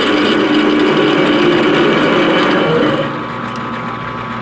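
12x36 import lathe running with a 15/16-inch drill in the tailstock chuck boring into a spinning metal sleeve: a steady machine hum with a high, steady tone. The sound drops somewhat about three seconds in.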